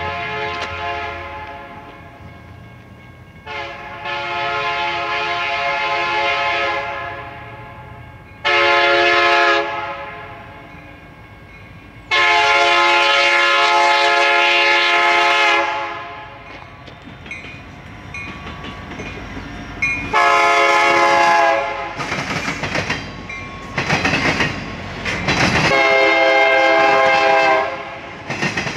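BNSF diesel locomotive's air horn sounding a series of blasts as the train approaches: long blasts about 3 and 12 seconds in, a shorter one between them, then several more, closer together, as it passes. From about two-thirds of the way in, wheel and rail noise of the train's flatcars rolling by, clacking over the rail joints.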